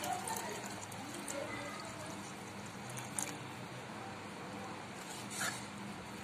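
Water pouring into a pressure cooker full of a wet grain-and-lentil mixture, then a long metal spoon stirring through the mixture, with a couple of short knocks.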